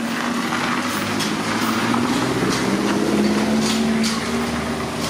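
A motor vehicle's engine running with a steady hum that grows louder toward the middle and eases off slightly near the end, as if passing close by.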